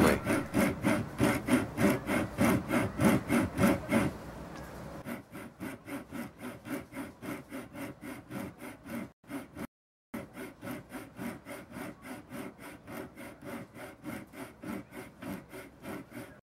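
Thin-bladed hand saw cutting through the thin plastic fan blades of a pump impeller, in quick, even back-and-forth strokes at about four a second. The strokes are louder for the first four seconds and quieter after, with a short break around the middle.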